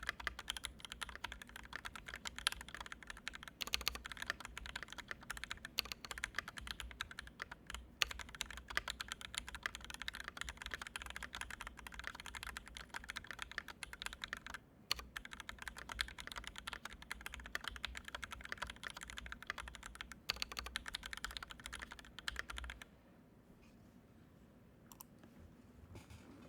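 Continuous fast typing on a Canoe Gen2 mechanical keyboard with Original Aspiration switches, an aluminium plate, two added layers of foam and GMK keycaps, a dense stream of keystroke clacks. The typing stops about three seconds before the end, leaving only a few faint clicks.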